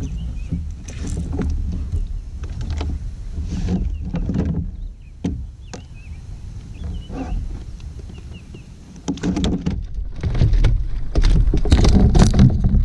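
Irregular knocks, thumps and rattles of a landed bass and a landing net being handled in a kayak, getting busier and louder near the end, over wind rumbling on the microphone.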